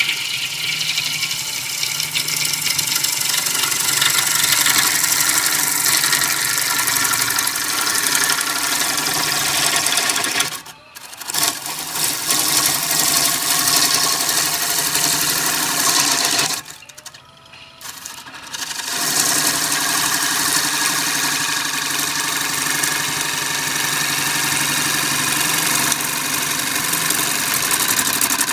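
Bowl gouge cutting the outside of a spinning cherry bowl on a wood lathe: a steady, loud shearing hiss of wood being cut as ribbon shavings come off the tool. The cut stops twice, briefly about ten seconds in and for about two seconds a little past halfway.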